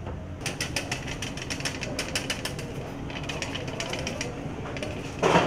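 Hand-crank metal flour sifter being turned, its agitator rasping against the mesh in a rapid, even run of clicks, about six a second, pausing briefly about three seconds in. A brief louder knock comes near the end.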